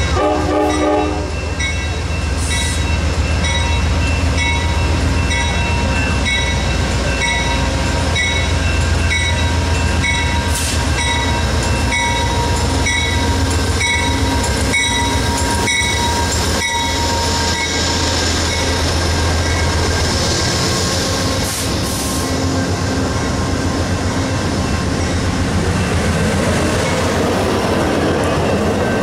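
An Amtrak GE Genesis P42DC diesel locomotive finishes a horn blast about a second in, then approaches and passes close by with a deep engine rumble while a grade-crossing bell dings about once a second. Once the locomotive is past, the rumble drops away and Superliner passenger cars roll by with steady wheel-on-rail noise.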